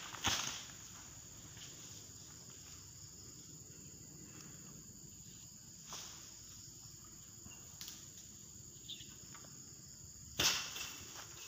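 Insects shrilling steadily on one high pitch, with a few sharp clicks and a louder burst of rustling noise near the end.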